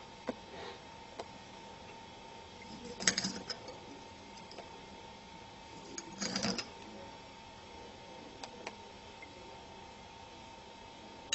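Light tableware handling while cherry tomato is cut and dropped into a glass verrine: a few soft clicks of knife and utensils, and two brief louder clatters about three and six seconds in, over a faint steady hum.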